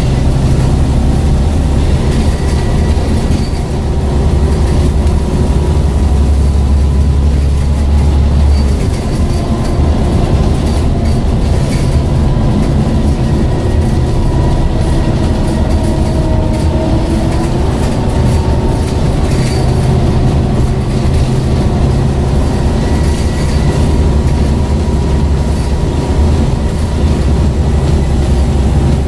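Scania N94UD double-decker bus under way, heard from inside the passenger saloon: its five-cylinder diesel and ZF automatic drivetrain run steadily, with road and body noise. The low engine note eases about eight seconds in, and a few light rattles come from the bodywork.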